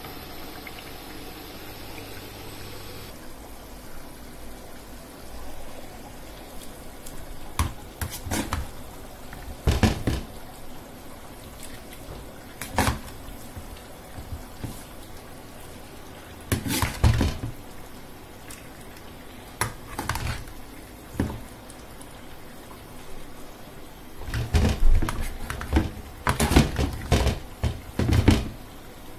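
Kitchen cooking sounds: scattered knocks and clatters of pots and utensils over a steady low background noise, growing busier near the end.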